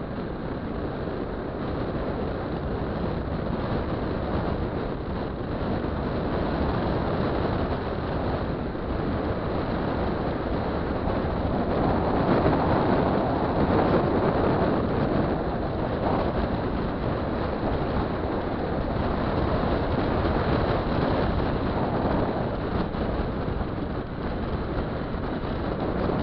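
A derestricted 50cc two-stroke scooter engine running under way, mixed with wind rushing over the microphone. It grows somewhat louder about halfway through.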